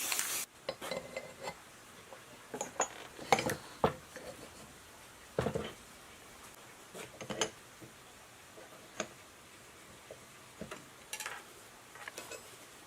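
Metal parts and tools clinking and knocking as they are handled and set down, a dozen or so separate strikes at irregular intervals. A spraying hiss cuts off suddenly half a second in.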